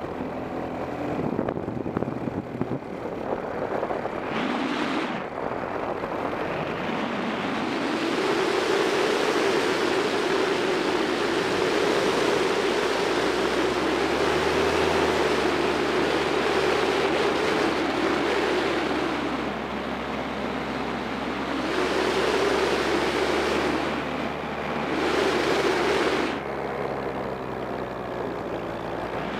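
Paramotor engine and propeller running in flight, heard under heavy wind rush on the microphone that swells and fades several times. A steady low engine drone stands out more clearly from about halfway through.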